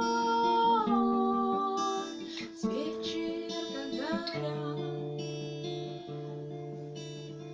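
Acoustic guitar strummed under a woman's singing voice that holds a long note and slides in pitch, then the guitar carries on alone, slowly getting quieter.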